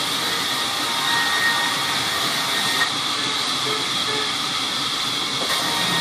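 Sawmill saw running with a steady, loud hiss and whir.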